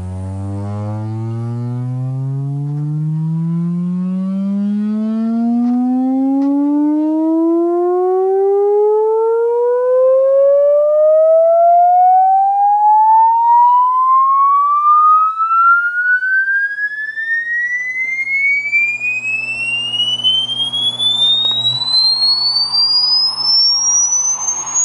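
Sine-wave frequency sweep played through a full-range loudspeaker in a sealed acoustic-suspension cabinet. The tone rises steadily from a low bass hum to a high whistle, with fainter overtones above it. The technician judges the speaker working but weak.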